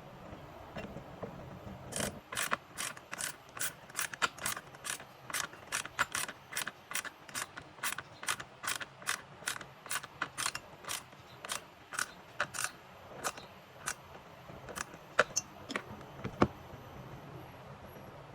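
Sharp mechanical clicks in a steady rhythm, about two or three a second, like a hand tool's ratchet being worked during reassembly. The clicks slow to a few scattered ones near the end.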